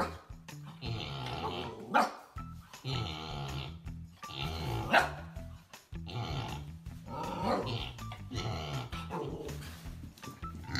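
Husky puppy barking and growling in repeated bursts, with sharp barks every two to three seconds, over background music.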